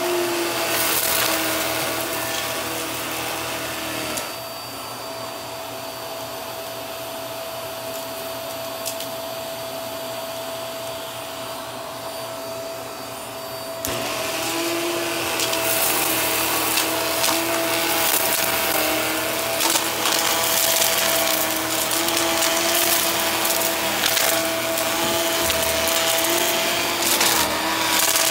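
Upright vacuum cleaner running on carpet: a steady motor hum and airflow hiss, with crackling and rattling as petals and grit are sucked into the nozzle. The sound drops and dulls for a stretch between about 4 and 14 seconds in.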